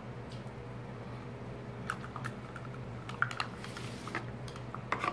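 Scattered light clicks and knocks as a plastic measuring cup and a plastic jug of cooking oil are handled and set down on a tabletop, over a steady low hum.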